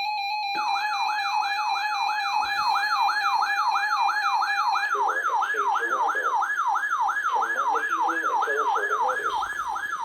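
Emergency Alert System siren for a flood warning: an electronic tone sweeping up and down about three times a second, starting after a brief steady tone.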